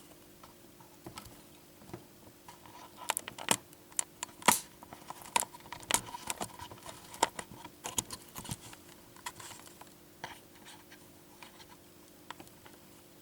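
Irregular clicks, taps and knocks of a camera being handled and set in place, thickest in the middle of the stretch, over a faint steady hum.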